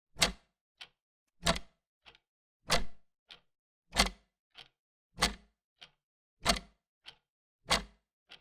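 Old mechanical clock ticking steadily, a loud tick with a low knock alternating with a fainter tock, a little over a beat and a half a second.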